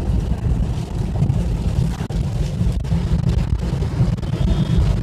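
Steady low road and engine rumble inside a moving vehicle's cabin.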